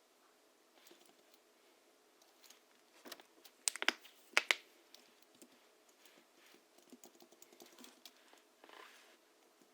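Hansung GHL-5X keyboard, its springs lubed with Krytox 103 and 107 over 50 g rubber domes, typed on in slow, irregular keystrokes. A cluster of louder strokes comes about four seconds in.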